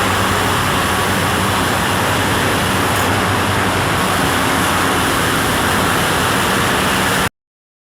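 Wood-processing machinery running with a steady mechanical din and low hum, cutting off abruptly near the end.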